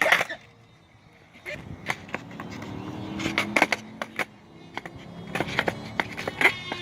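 Skateboard with only hand-tightened truck bolts rolling on pavement. A sharp clack comes right at the start, and after a short lull the wheels roll with a run of clicks and clacks from the board.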